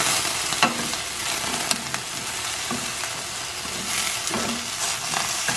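Diced potatoes sizzling in olive oil in a stainless steel skillet, golden-browning over medium heat, with a wooden spatula scraping and tapping against the pan a handful of times as the cubes are turned.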